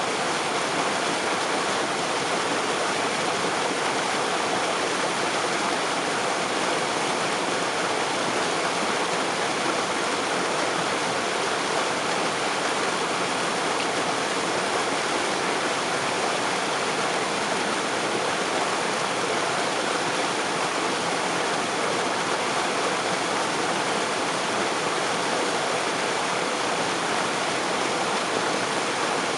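Waterfall spray: water falling and splashing in a steady, even rush that does not change.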